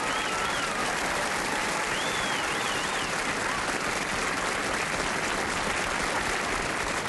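Studio audience and people on stage applauding steadily, with a few high wavering calls rising above the clapping in the first three seconds.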